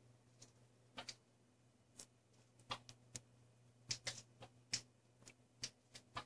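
Faint, irregularly spaced small clicks and taps, bunched most closely in the middle, over a steady low hum.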